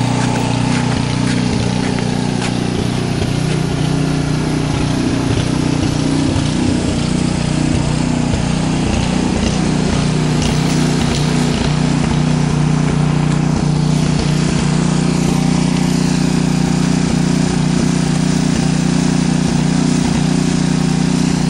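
Snowblower engine running steadily, a continuous drone.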